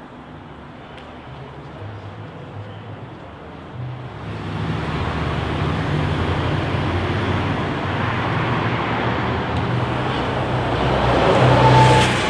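Road traffic noise, faint at first and much louder from about four seconds in, swelling to a peak near the end as a vehicle passes close.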